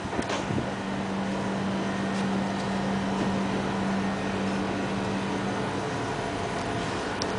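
Steady mechanical hum: a low, even drone over a noisy rush, easing a little about six seconds in.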